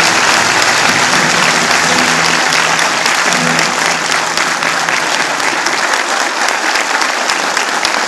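Theatre audience applauding steadily. A low held tone lies beneath the clapping for the first few seconds and then fades out.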